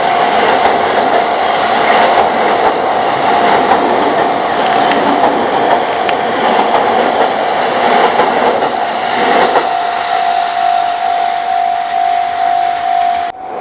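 A JR East train passing over a level crossing, its wheels clattering over the rail joints, while the crossing's warning bell rings steadily. The train noise dies away about two-thirds of the way in, leaving the bell ringing on its own; there is a brief dropout just before the end.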